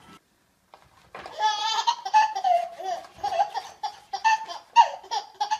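A baby laughing in a run of short, high-pitched bursts, starting about a second in.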